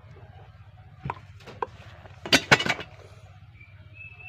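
A few sharp knocks, then a quick clatter of loud hard knocks about halfway through, from PVC pipe and plastic union fittings being handled and knocked together.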